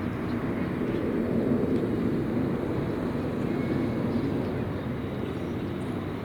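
Airliner's jet engines passing, a steady rushing noise that swells about a second and a half in and then slowly fades.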